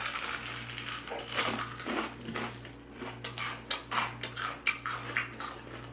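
Crispy fried chicken crunching as two people bite into it and chew, a rapid run of sharp crackling crunches.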